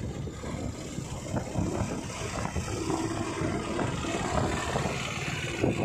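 A vehicle driving along a road: steady engine and road noise with wind rumbling on the microphone.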